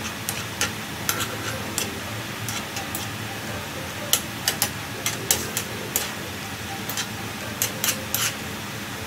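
Noodles and vegetables being stirred in broth in a non-stick frying pan, with a thin metal utensil tapping and scraping the pan in irregular sharp clicks over a steady hiss. The taps come thickest in the second half.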